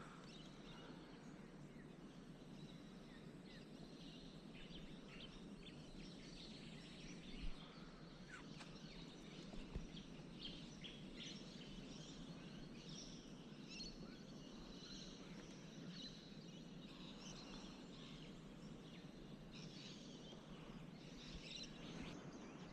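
Faint outdoor ambience with many short, scattered bird chirps over a low steady hiss, and two soft knocks a few seconds apart near the middle.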